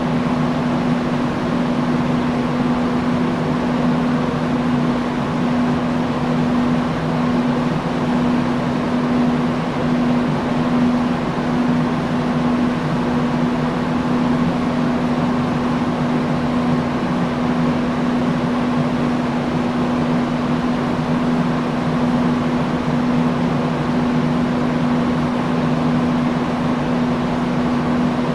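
Industrial fan running steadily: an even rush of air over a constant motor hum.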